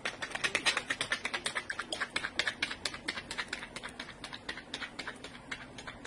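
Thin, clear lake ice set ringing by a person landing on it: a rapid run of sharp, high pings, several a second, strongest at first and fading away over the seconds.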